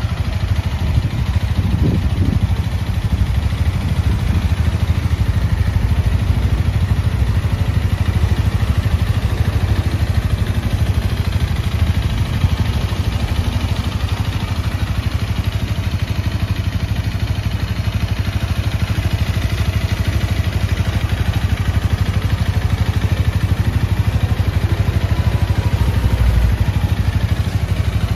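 Honda Rebel 250's single-cylinder engine idling steadily.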